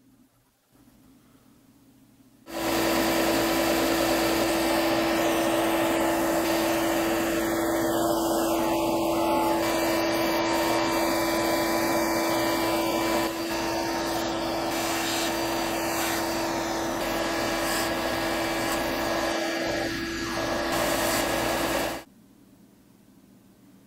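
Benchtop belt-and-disc sander running, pine wood pressed against the abrasive: a steady motor hum under a loud sanding hiss. It starts suddenly about two and a half seconds in, drops slightly in level about halfway, and cuts off abruptly near the end.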